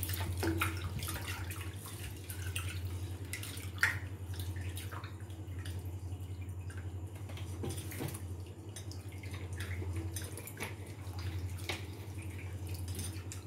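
Basmati rice being washed by hand in a steel bowl of water: the grains are swished and rubbed, with small splashes and drips, and one sharper splash about four seconds in. A low steady hum runs underneath.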